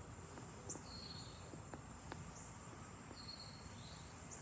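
Faint outdoor ambience: a steady high-pitched insect trill, such as crickets, with a few short bird chirps and some faint clicks.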